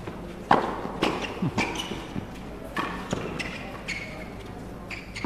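Tennis rally on a hard court: a quick series of sharp racket strikes on the ball and ball bounces, about seven in all, the loudest about half a second in.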